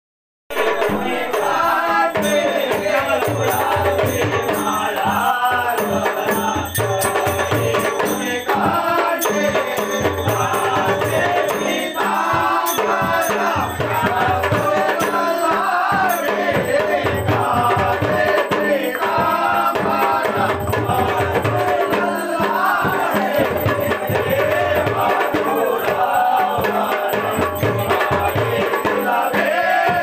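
Background music with a wavering melodic line over a steady accompaniment, starting about half a second in.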